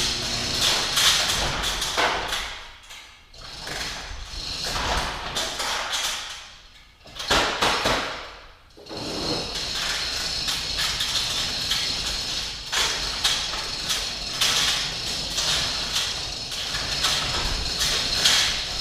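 Electric welder arc crackling while welding exhaust pipe pieces, in several runs broken by short pauses about three, six and a half, and eight and a half seconds in.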